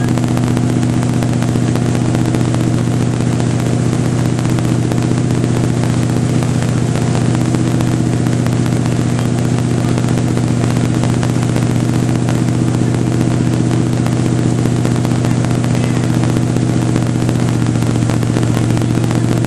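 Motorboat engine pulling a water skier at a steady speed, a constant drone with no change in pitch, over a steady hiss of water and wind.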